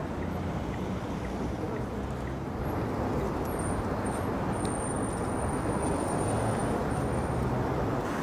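Steady street traffic noise of passing cars, getting a little louder about three seconds in.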